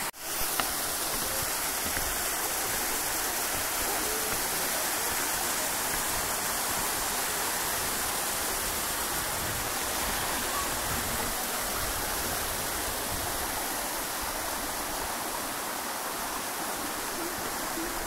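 Waterfall and stream cascading over rock into a pool: a steady rushing of water.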